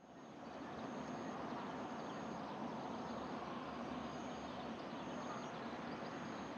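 Outdoor background ambience: a steady low hiss of distant noise, with faint high-pitched chirps recurring about once a second. A loudspeaker chime in bell-like tones cuts in at the very end.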